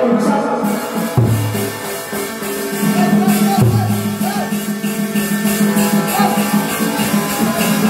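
Tuồng (Vietnamese classical opera) ensemble music: a steady held low tone under fast, even percussion clicks, with two deep drum strikes about two and a half seconds apart.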